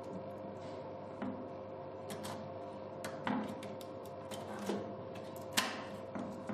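Scattered small clicks and light knocks from hands handling wires and a plug-in terminal block, about six in all, with the sharpest near the end, over a steady electrical hum.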